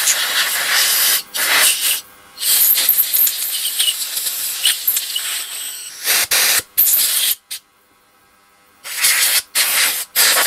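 Compressed-air blow gun on a shop air line regulated down to about 2 bar, hissing as it blows out the passages of a plastic lawn-tractor carburetor part. Long blasts for the first six seconds or so, then short puffs, a pause of about a second, and more short puffs near the end.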